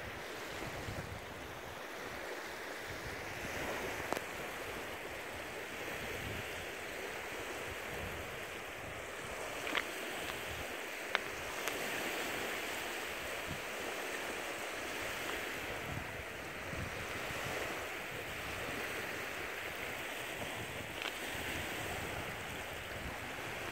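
Small lake waves lapping and washing onto a pebble shore: a steady rushing wash, with a couple of faint clicks near the middle.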